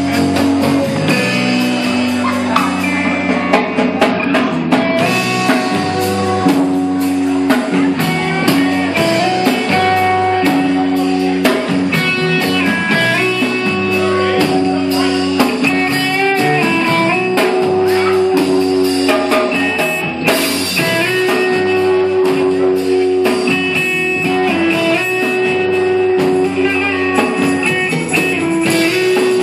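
Live rock band playing, with electric guitar to the fore over a drum kit.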